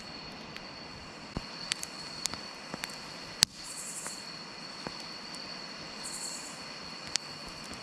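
Insects keep up a steady high trill, with two short buzzy bursts of a higher chirp in the middle, over a soft background hiss. Scattered sharp clicks and knocks are heard, the loudest about three and a half seconds in.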